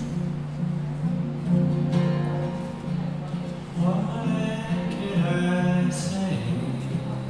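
Acoustic guitar played solo, its low notes ringing on steadily, with a man's voice singing over it for a couple of seconds in the middle.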